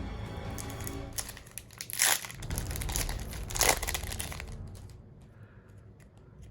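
Foil booster pack wrapper crinkling and tearing open, with two loud rips about two seconds in and again about a second and a half later, over background music.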